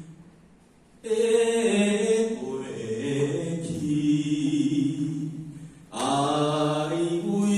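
A voice singing a Taoist devotional song in Taiwanese Hokkien to a Taiwanese opera (gezaixi) melody, in slow, long-held notes that step up and down. A new phrase begins about a second in and another just before six seconds.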